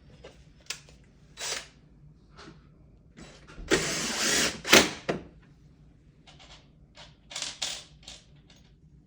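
Maytag dishwasher door handle and latch being worked by hand to try to get the faulty machine to start: a string of sharp clicks and knocks, with a louder clatter lasting about a second and a half near the middle.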